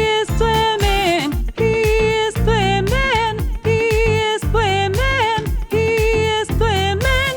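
Background music: a bouncy tune with a repeating melody line over a steady bass beat.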